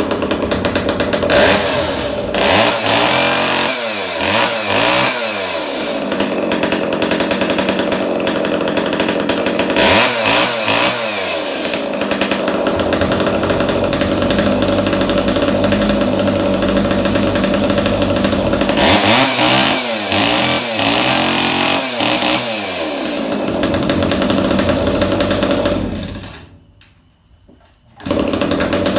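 Echo 290 EVL two-stroke chainsaw running just after its carburetor was cleaned, revved up and down three times between spells of steady running. Near the end the sound falls away for about two seconds, then comes back suddenly.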